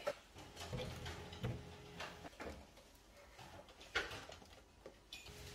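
Scattered faint knocks and clicks of household objects being handled and set down, about half a dozen, the sharpest about four seconds in, over a faint steady hum.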